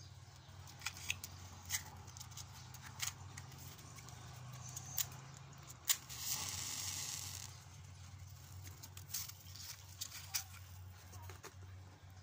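Cigarette being lit: a sharp click about six seconds in, followed by about a second and a half of hiss, among scattered small clicks and a low steady rumble.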